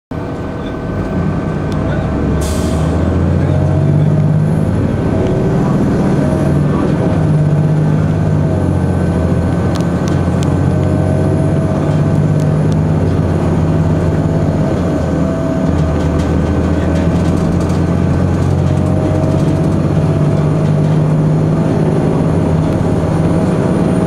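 Cummins ISC diesel engine and Allison B400R automatic transmission of a 2002 Blue Bird CS transit bus, heard from the rear seats as the bus drives; the engine drone rises and falls with engine speed. A short burst of air hiss comes about two and a half seconds in.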